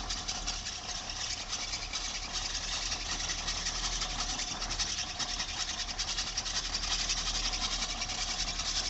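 Diesel engine of a Tata tipper truck idling steadily, with a fast, even pulsing clatter.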